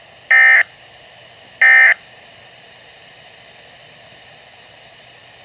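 Two short bursts of weather-radio SAME data tones, a warbling digital squeal about a third of a second long, heard twice about a second and a half apart near the start. Their shortness fits the end-of-message code that closes an alert. After them there is a steady faint radio hiss.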